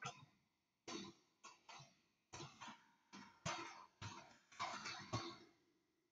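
Faint computer-keyboard keystrokes: a dozen or so soft, irregular clicks as a file name is typed.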